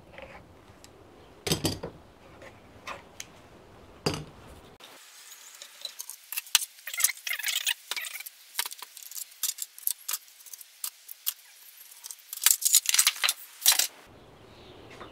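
Screw clamps and quick-release clamps being taken off a glued wooden cabinet door and set down one after another: sharp clicks and knocks at first, then a run of light metal and plastic clinks and rattles as the clamps are piled up.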